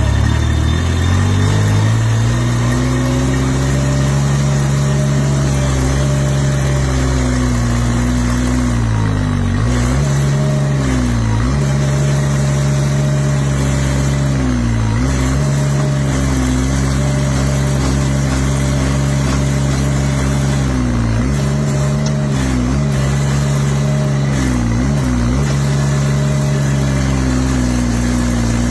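Derette V1000 mini skid steer's engine revving up in the first couple of seconds, then running steadily at working speed. Its pitch sags briefly about eight times and recovers, the sign of the engine taking load as the hydraulics work the auger.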